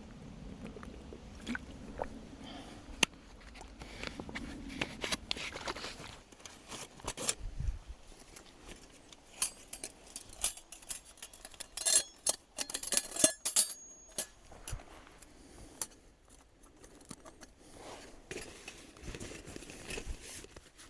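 Irregular small clicks, clinks and knocks of camp gear being handled, with a cluster of sharper metallic clinks in the middle, over faint rustling.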